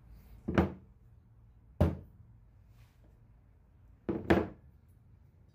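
Dull knocks of objects being handled: a quick double knock about half a second in, a single knock near two seconds, and another double knock just after four seconds.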